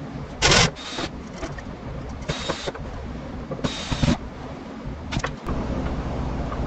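Cordless driver running in short bursts of about half a second each, four or five times, as long screws are driven through a cabinet into wall studs. A steady low hum takes over near the end.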